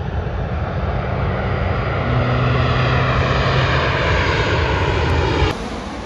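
A loud, steady engine drone with a low hum and slowly shifting higher tones. It cuts off abruptly about five and a half seconds in.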